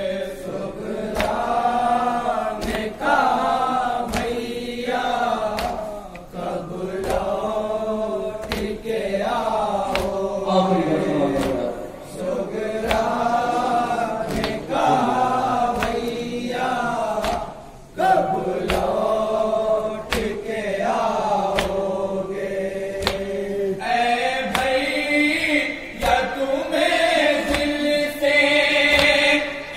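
A group of voices chanting a Shia nauha, a mourning lament, in unison. Sharp rhythmic slaps of matam (chest-beating) keep time about once a second.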